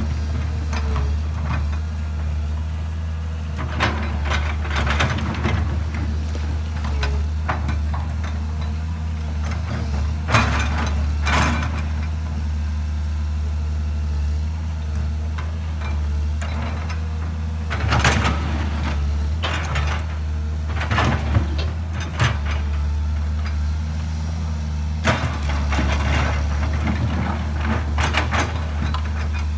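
Komatsu PC200-8 excavator's SAA6D107E-1 six-cylinder diesel engine running steadily while it digs, with louder stretches every few seconds as the boom and bucket work the earth and rock.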